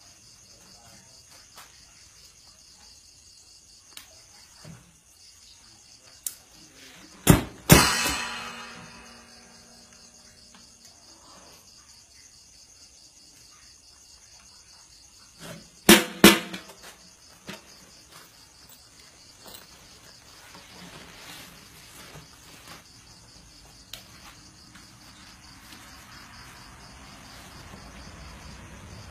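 Crickets chirring steadily, broken by two bursts of loud strikes on a back-mounted rig of cymbals and a drum, about seven and sixteen seconds in; the first crash rings on for a couple of seconds.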